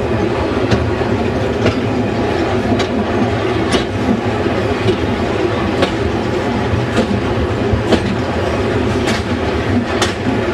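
Wheels of a train rolling along 3ft 6in gauge track with a steady rumble, and a sharp click from the rail joints about once a second.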